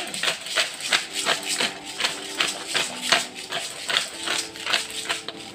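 Spice shaker shaken over raw steaks, its contents rattling in quick, even strokes about three times a second.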